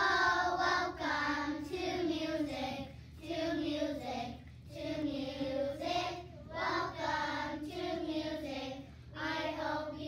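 A class of young children singing a song together, in phrases of a second or two with brief pauses between them.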